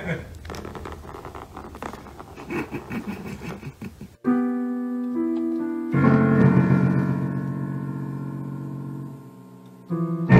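Soft scuffling noises, then piano notes start suddenly about four seconds in. A loud, clashing cluster of notes sounds about six seconds in and slowly fades, with another just before the end, as a cat steps on the keys.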